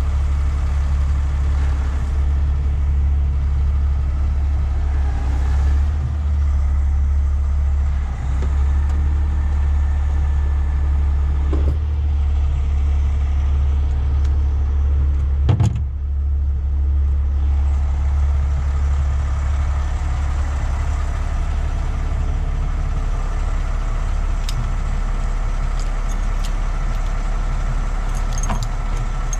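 The diesel engine of a 50-ton rotator tow truck running steadily, a low, even hum that stays constant throughout. A single sharp knock sounds about fifteen seconds in.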